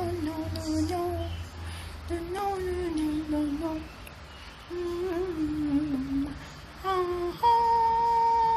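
A voice humming a slow melody in short phrases with pauses, ending on a long held note.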